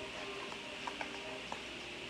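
Soft background music with held notes, with three light clicks in the second half.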